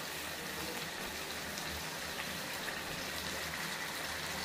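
Chicken frying in oil in a pan, a steady sizzling hiss, with wet ground masala paste just added on top.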